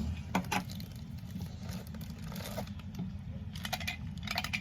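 Plastic packaging rustling and crinkling as it is handled and opened, with scattered light clicks and small knocks.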